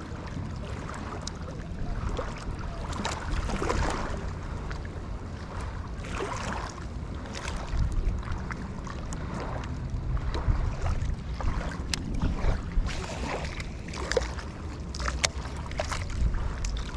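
Wind buffeting the microphone over small waves washing on the beach, with a few sharp clicks in the second half.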